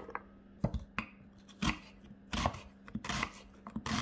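Kitchen knife slicing an onion on a wooden cutting board: a series of sharp, uneven cuts, each knocking against the board.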